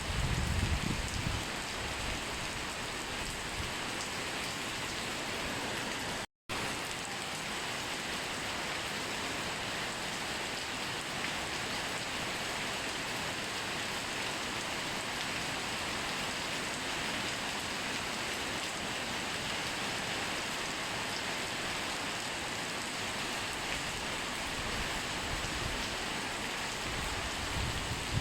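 Steady rain falling, an even hiss with no let-up. The sound cuts out completely for a split second about six seconds in.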